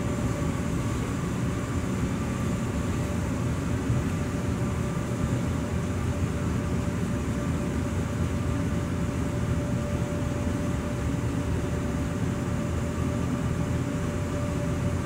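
Steady low rumble of indoor ventilation, with a faint steady hum over it.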